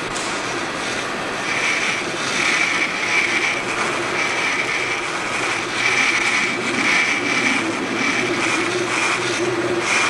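Steady rushing drone with a high tone that comes and goes, and a lower hum that grows stronger near the end.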